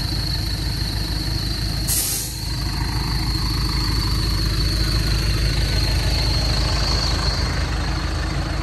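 A vehicle's engine running steadily, with a short hiss about two seconds in.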